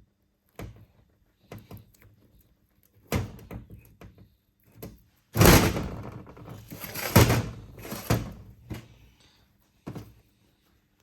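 Workshop knocks and clunks of metal brake parts and tools being handled, with a loud stretch of rattling and clattering about halfway through, and sharp hits at its start and about two seconds later.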